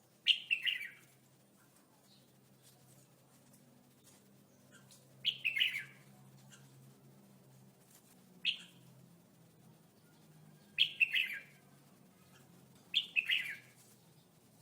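Red-whiskered bulbul singing short, loud, warbling song phrases, five of them a few seconds apart, each well under a second long.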